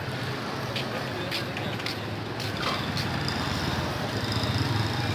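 Steady street noise: a low engine hum of traffic, with a few sharp clicks in the first few seconds.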